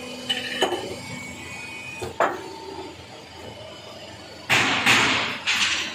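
Steel drill bit body knocking against the steel press fixture as it is handled: two sharp metallic knocks with a short ring. A louder harsh rasping noise follows in a few pulses near the end.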